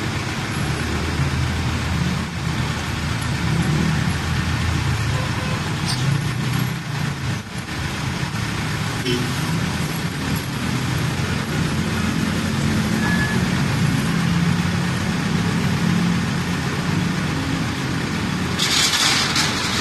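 A truck engine idling steadily with street traffic around it, and a short burst of hiss near the end.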